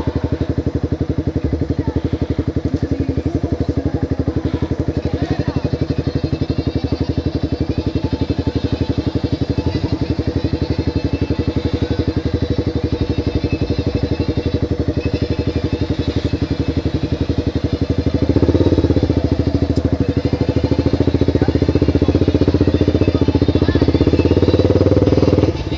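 Motorcycle engine running at low speed with a rapid, even pulse. About two-thirds of the way in it gets louder and stays up under more throttle, dropping back just before the end.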